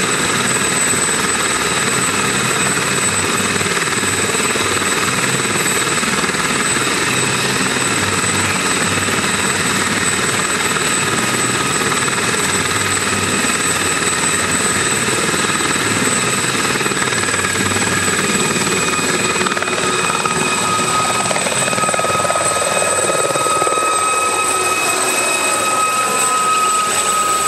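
Aérospatiale/SOKO SA 341 Gazelle helicopter running at speed, with its Turbomeca Astazou turboshaft and Fenestron tail rotor giving a steady high whine over the rotor noise. About twenty seconds in, the sound shifts as the helicopter lifts off and flies overhead.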